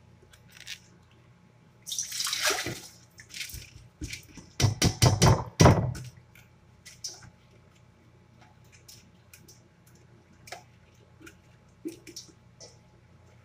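Washed rice and water being handled and tipped from a plastic container into a stainless steel pot: a splash and pour about two seconds in, a run of knocks and splashes around five seconds in, then scattered light clinks.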